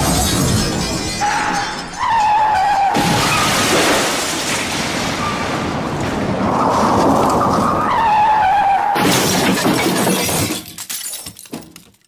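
Car crash sound effect: tyres squeal in several drawn-out stretches between loud crashing and shattering. Near the end, scattered bits of debris clatter and die away.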